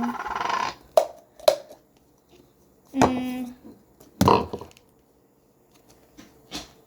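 Slime kit packaging being handled: two sharp clicks about a second in, a short hum about three seconds in, and a brief rustle just after, then quiet handling.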